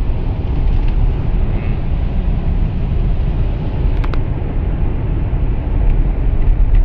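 Road noise inside a car's cabin at highway speed: a steady low rumble, with a short click about four seconds in.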